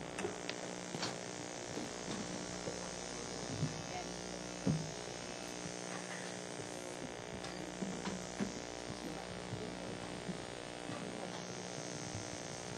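Steady electrical mains hum, with a few faint short knocks, the clearest about four and a half seconds in.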